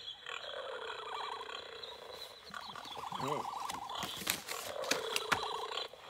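Recorded wild-animal sounds played from a children's sound book's small speaker: a fast warbling trill that comes in stretches, with a short lower call about three seconds in. Then several sharp clicks of handling and page turning between about four and five and a half seconds.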